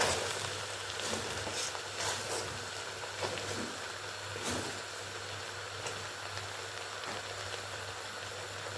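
A seasoned pot of food sizzling and bubbling on the stove as it is stirred, with a few light knocks and scrapes of the spoon against the pot.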